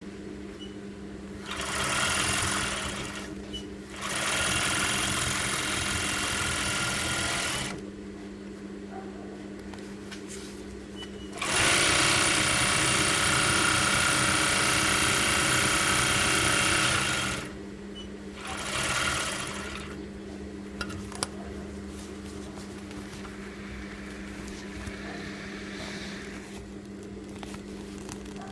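Golden Choice GC4-5A fur sewing machine stitching in four runs: two of a few seconds each, a longer one of about six seconds, then a short one. A steady low hum continues between the runs.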